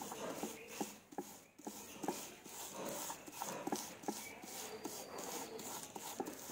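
Thin plastic sheet crinkling and rustling under hands pressing a ball of papad dough flat through it, with soft irregular knocks a few times a second.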